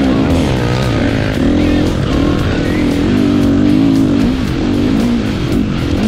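2017 KTM 350XC-F's single-cylinder four-stroke engine being ridden hard, its pitch rising and falling over and over with throttle and gear changes, with music playing over it.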